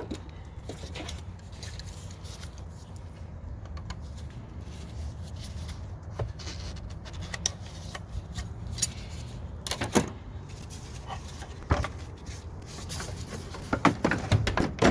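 Scattered knocks, clicks and clunks of plastic parts being handled as a car's stock airbox is worked loose and lifted out of the engine bay, over a steady low background hum. A cluster of knocks comes near the end.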